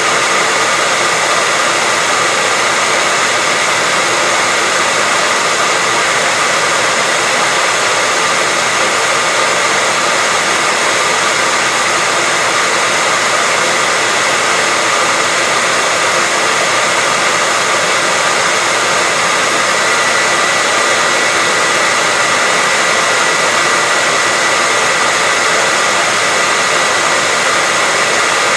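Hair dryer blowing continuously at a steady speed, an even rushing of air with a faint steady whine from its fan motor.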